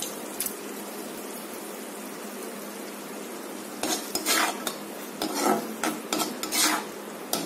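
Orange-peel pachadi sizzling in a kadai, then, from about four seconds in, a perforated steel spatula stirring and scraping against the pan in quick, uneven strokes.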